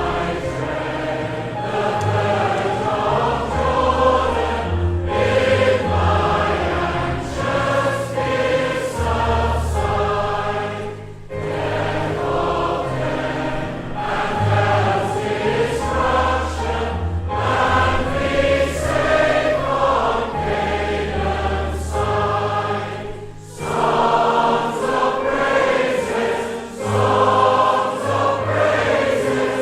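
A choir singing a hymn over a low, steady bass accompaniment, in phrases of about six seconds with short breaks between them.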